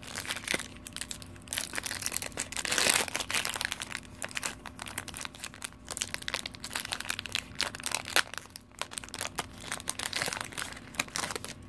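Foil wrapper of a Pokémon TCG XY booster pack being torn open and crinkled by hand, with irregular crackling throughout.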